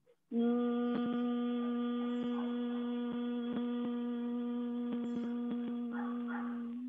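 A woman's closed-mouth hum, one long note held steady on a slow exhale, as in bhramari (humming-bee) breath. It starts just after the beginning and stops near the end.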